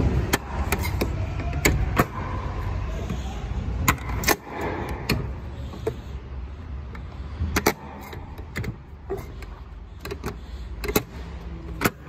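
Diesel truck engine idling with a steady low rumble, overlaid by irregular sharp clicks and knocks.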